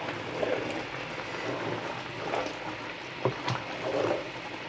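Potatoes and eggplant sizzling in a large metal pot as a spoon stirs them up from the bottom, scraping through the vegetables several times, with a sharp knock of the spoon against the pot a little past three seconds in.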